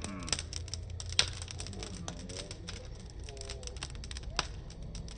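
Wood fire crackling: irregular sharp pops and clicks, loudest about a second in and again a little after four seconds, over a low steady rumble.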